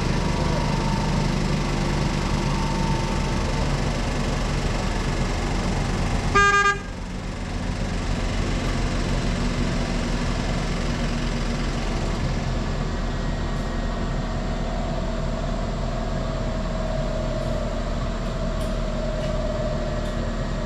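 Kubota SVL95-2S compact track loader's diesel engine running steadily at work, with a single short beep about six seconds in, after which the engine's sound briefly dips and recovers. A steady whine joins in later and sinks slowly in pitch.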